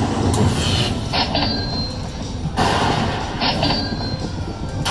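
Magic Pearl Lightning Link slot machine's win-celebration effect: a loud rumbling, crackling noise that plays while the win meter counts up. It starts over about two and a half seconds in, with short high chimes between.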